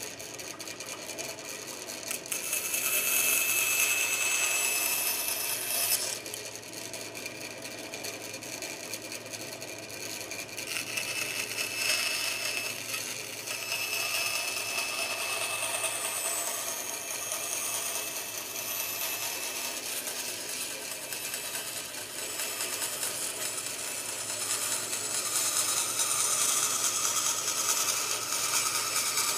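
Bandsaw running and cutting through a plywood board, the blade's hum steady while the sawing hiss rises and falls as the wood is fed in. The cutting is loudest about two to six seconds in, again around twelve seconds, and near the end.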